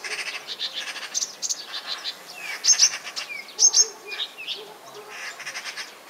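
Nightingale singing: rapid phrases of loud, sharp high notes, clicking rattles and short downward whistles, broken by brief pauses.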